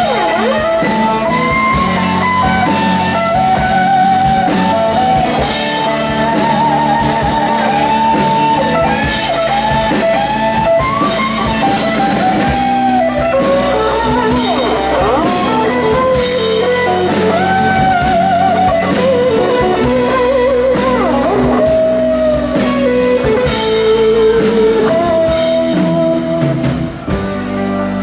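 Live blues-rock band playing: an electric guitar lead with bent, wavering notes over a steady drum beat and bass. The lead line ends shortly before the end.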